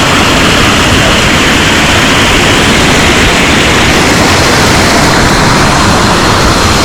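Loud, steady rushing roar of a waterfall close to the microphone.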